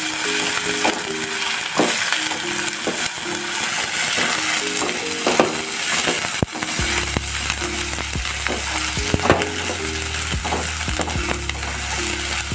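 Onions with ginger and garlic paste frying in hot oil, sizzling steadily while being stirred, with frequent clicks of the utensil against the pan. Light background music plays, and a bass line comes in about halfway through.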